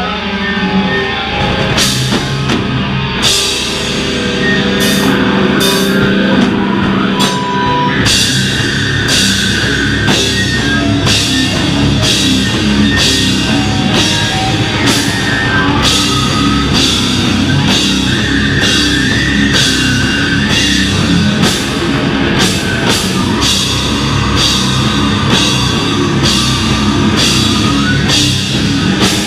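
Beatdown hardcore band playing live: heavy distorted electric guitar and bass over a drum kit, with cymbal crashes landing about once a second from around two seconds in.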